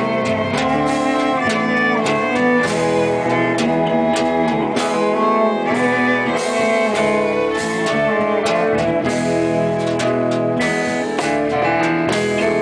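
Small ensemble playing a piece together: bowed violin and cello, a guitar, and mallet notes struck on an electronic mallet controller, with frequent struck notes over sustained string lines.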